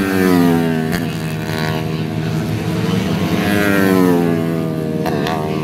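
Race-tuned four-stroke 130cc motorcycles passing at speed, one right at the start and another about four seconds in, each engine note falling in pitch as it goes by. A steady engine drone runs underneath.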